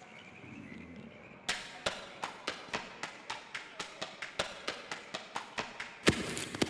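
Running footsteps on a track: sharp footfalls about four a second, quickening slightly, starting about a second and a half in. A louder, denser burst of sound comes near the end.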